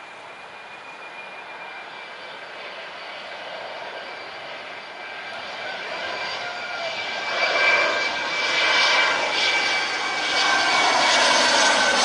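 Twin-engine jet airliner on landing approach: a rushing engine noise with a steady high whine over it, growing louder as the plane comes nearer. Near the end the tones bend in pitch as it passes close.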